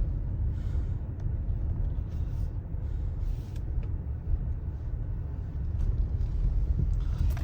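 Steady low rumble of a vehicle driving, heard from inside the cabin, with a few faint ticks.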